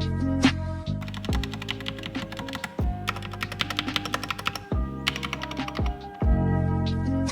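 Rapid typing on a GK68X mechanical keyboard, in two fast runs of keystrokes through the middle, over background music.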